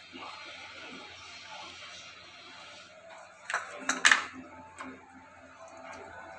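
Knife knocking on a cutting board while small limes are cut: a quick cluster of sharp knocks about three and a half seconds in, with a few lighter taps after.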